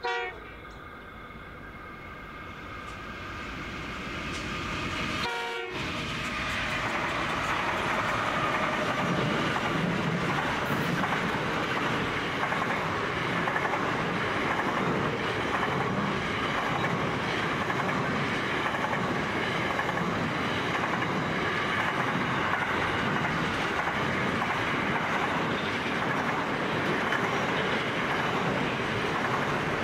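Long freight train of container and steel wagons rolling past at speed, the wheels making a steady clatter over the rail joints that builds over the first several seconds and then holds. There is a short locomotive horn blast at the very start and another about five seconds in.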